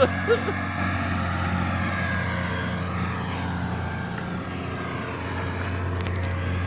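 A motor engine running steadily, its pitch drifting slowly up and down.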